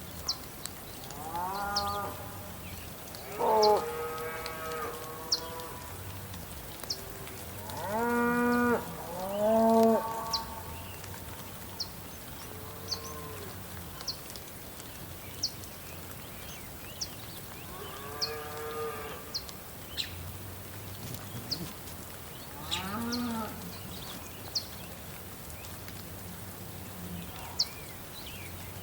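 Cows mooing, about seven calls spread through the stretch, the loudest around 4 and 10 seconds in. Underneath is a steady hiss of rain with sharp ticks about once a second.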